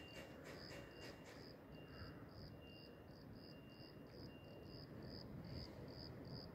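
Faint, evenly repeating high chirps of a cricket, about three a second, over a low background rumble, with a few light ticks in the first second and a half.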